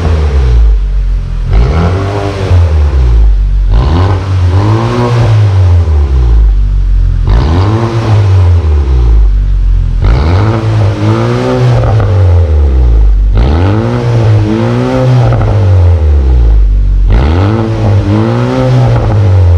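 Chevrolet Malibu's engine revved repeatedly through an aftermarket valved full exhaust with the valve open. It makes about six rises and falls in pitch, each held back because the engine's rpm is limited while the car is parked.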